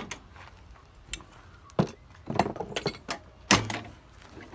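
Plastic vehicle grille and its retaining clips clicking and knocking as the grille is worked loose and pulled out: a handful of separate sharp clicks and knocks, the loudest about three and a half seconds in.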